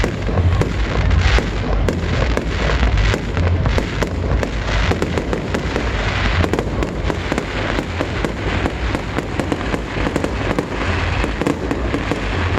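Fireworks display: a dense, continuous run of bangs and crackling bursts going off several times a second over a low rumble.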